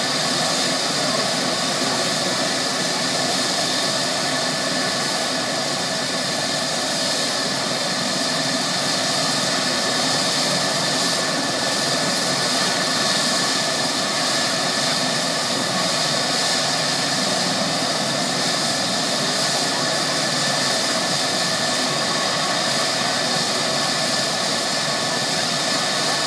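Eurocopter EC135 helicopter's twin turbine engines running steadily on the ground before lift-off: a constant high whine over a dense rushing noise.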